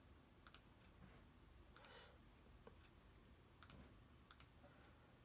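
Faint computer mouse clicks over near silence: four clicks, each a quick double tick of the button pressing and releasing.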